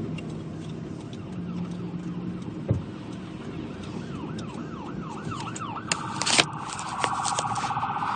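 Emergency vehicle siren in a quick rising-and-falling yelp that starts about halfway through, then switches to a faster, louder warble near the end, over a steady car and road rumble. A sharp knock comes about six seconds in.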